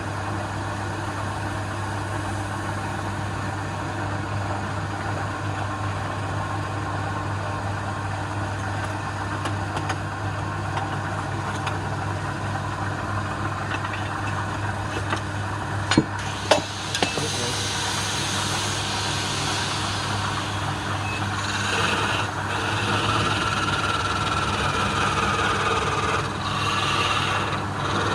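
Wood lathe's electric motor running with a steady hum. Two sharp knocks come about halfway, after which a louder, uneven hiss joins the hum.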